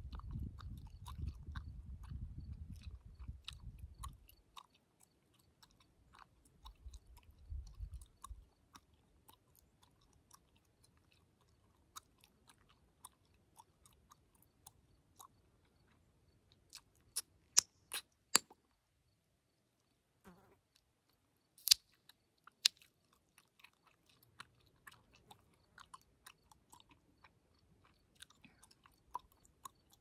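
Chewing gum worked in the mouth close to the microphone: a steady run of soft, wet little clicks and smacks. A few louder, sharp snaps come in the middle, where the gum is popped.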